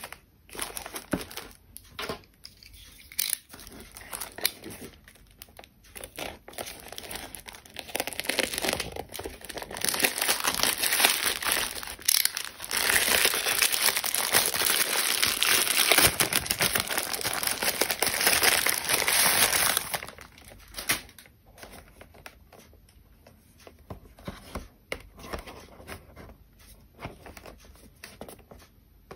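Black plastic mailer bag being crinkled and torn open by hand, with a long stretch of loud tearing and rustling in the middle, then quieter rustles and taps near the end.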